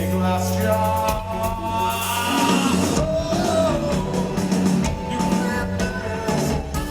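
Rock band playing live: sung vocal lines over a steady bass line and drums.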